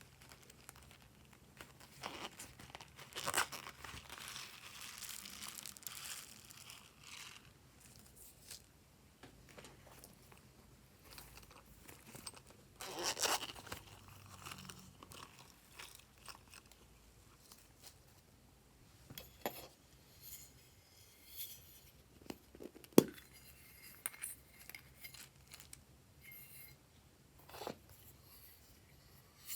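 Glossy slime being handled and mixed, making irregular crackling, crunching sounds with a few sharp clicks, the loudest about two thirds of the way in.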